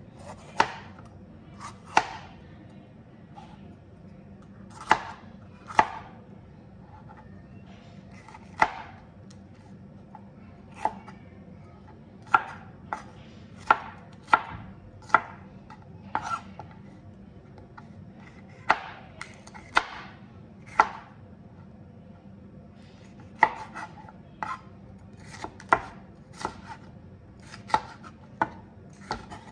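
Chef's knife cutting a red bell pepper on a plastic cutting board: sharp knocks of the blade meeting the board, at uneven intervals of about a second, some in quick pairs, with short pauses between runs of cuts.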